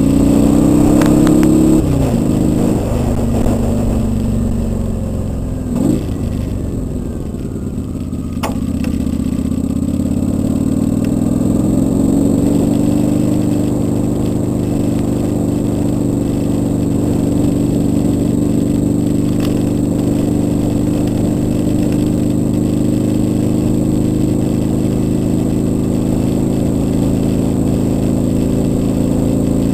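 Kawasaki Vulcan 800's V-twin engine running under way. Its pitch rises and drops sharply in the first two seconds and jumps briefly about six seconds in. It runs lower for a few seconds, then climbs and holds steady at cruising speed.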